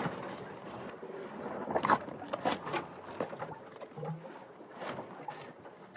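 Quiet handling sounds of canvas being hand-sewn: a few light, scattered clicks and knocks over soft rustling.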